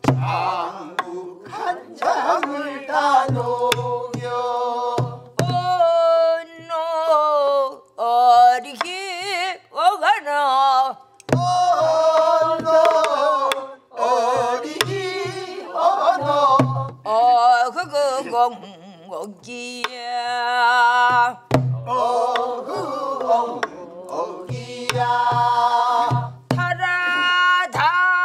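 A woman singing a Namdo folk song in Korean traditional style, with wide, wavering vibrato and long held notes, keeping the rhythm on a buk barrel drum whose dull, low stick strokes fall in small groups under the voice.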